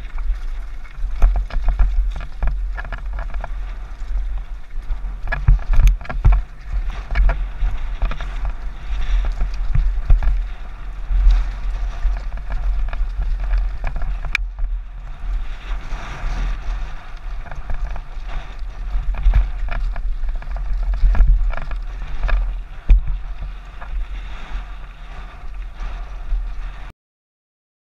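Wind buffeting a helmet-mounted camera's microphone while riding a rough, rocky trail, a constant low rumble with frequent knocks and rattles from the bumps. It cuts off suddenly near the end.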